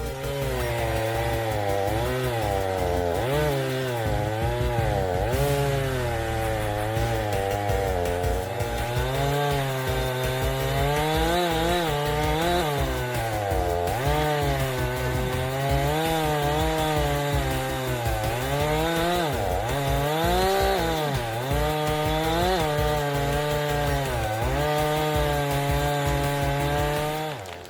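Two-stroke chainsaw cutting into a tree, its engine pitch dipping under load and picking back up over and over as it bites into the wood. It stops abruptly near the end.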